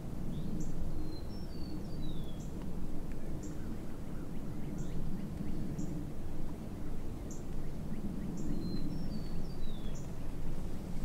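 Open-field ambience: a steady low background rumble, with a small bird giving short high chips about once a second and, twice, a songbird's brief run of descending whistled notes.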